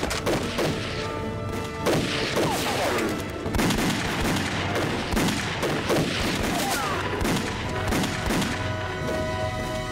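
Gunfire from several rifles in a sustained exchange, with shots following each other every fraction of a second, over dramatic background music.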